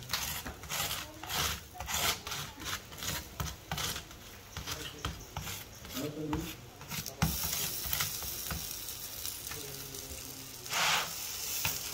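Gözleme dough being rolled out with a rolling pin on a wooden board: quick rhythmic rubbing strokes, about two or three a second. From about seven seconds in comes a steady sizzle of frying on the griddle, with a louder swish near the end.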